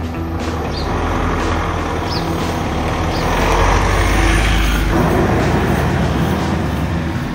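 Mitsubishi Pajero Sport SUV driving past close by: engine and tyre noise build to a peak about four seconds in, then ease off as it pulls away.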